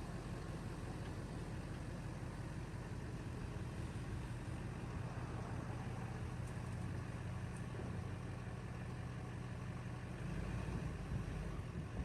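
A motor vehicle's engine idling steadily with a low hum, getting a little louder about ten seconds in.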